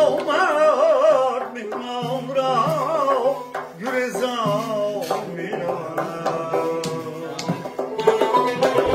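A man singing a Tajik song in an ornamented, wavering voice, accompanied by a plucked tar and a hand-struck frame drum. The voice drops out about five seconds in, leaving the tar and drum playing on.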